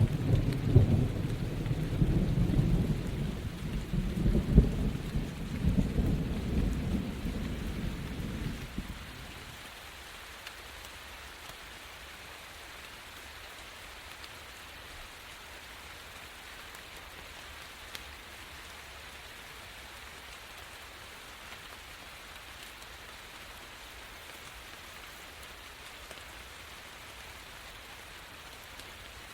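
Rain falling under a tree, a steady hiss of drops. A low, rolling rumble of thunder with loud peaks dies away about nine seconds in, leaving only the rain.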